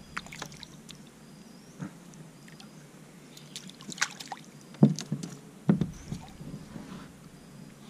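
Water splashing and sloshing against a kayak's side as a hooked tracajá (yellow-spotted river turtle) thrashes at the surface and a hand grabs at it. There are a few sharp splashes, the loudest about five seconds in.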